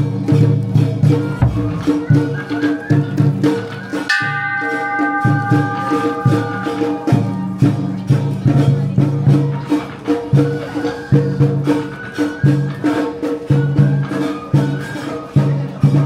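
Traditional Japanese festival music with rattling percussion keeping a steady beat over low sustained tones. About four seconds in, a few high notes are held together for about three seconds.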